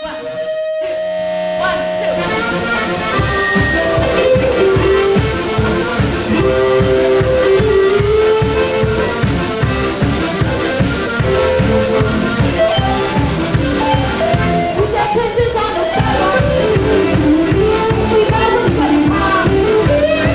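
Music with a steady beat and a melody line over it, building up over the first two seconds.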